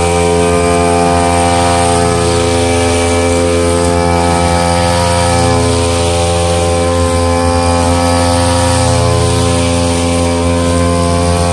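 Sumo backpack brush cutter's two-stroke engine running steadily at an even pitch while its cutting head trims lawn grass.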